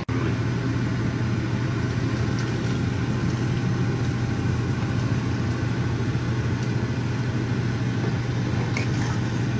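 Steady low mechanical hum over an even hiss, unchanging throughout, with a couple of faint ticks.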